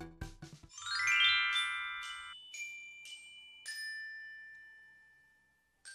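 Short outro jingle in bell-like chime notes: a background tune stops about half a second in, then a quick rising run of notes and a few single ringing notes that slowly fade out. New chime notes start right at the end.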